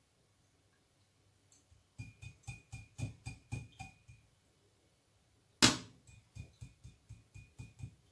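A small bottle and its cap being handled after strained oil has gone into it: a run of quick light knocks, about four a second, with a faint ringing tone, a single sharp knock about five and a half seconds in, then another run of lighter knocks.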